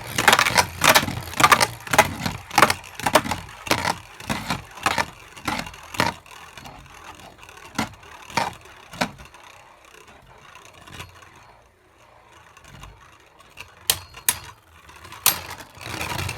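Two Beyblade spinning tops clashing in a plastic stadium: rapid, clattering hits that thin out and fade over the first ten seconds or so as the tops slow down, then a few separate sharp clicks near the end.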